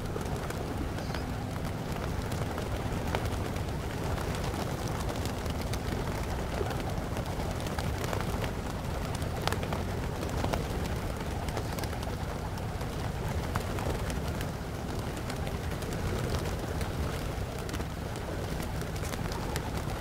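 Hundreds of pigeons cooing together in a dense, steady chorus, with scattered short clicks and flutters throughout.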